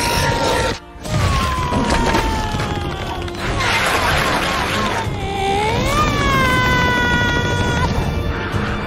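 Animated-film action soundtrack: a cartoon character's long, high held scream cuts off abruptly a little under a second in. Music with sliding and held notes follows, mixed with booms and crashes.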